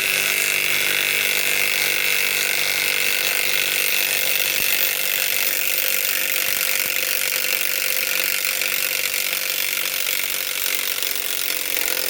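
Flex FX1451 mid-torque cordless impact wrench hammering steadily in reverse, backing a long lag screw out of wood.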